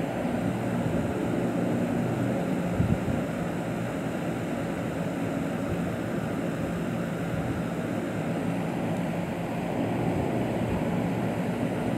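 A steady mechanical hum and whir with an even hiss, and a single short knock about three seconds in.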